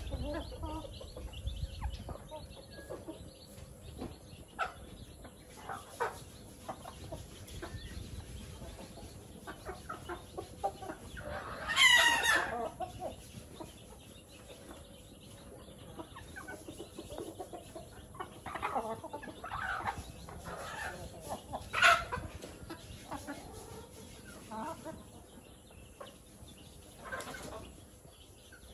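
A flock of chickens clucking in short, scattered calls. About twelve seconds in one bird gives a loud call lasting about a second, and another brief loud call comes about two-thirds of the way through.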